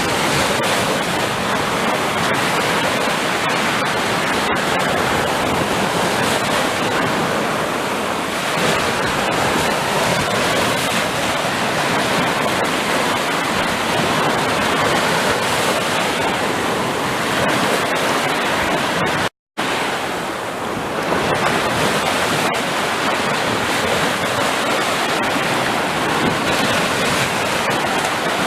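Sea surf: waves breaking and washing in a continuous rush that swells and eases gently. The sound cuts out completely for a split second about nineteen seconds in.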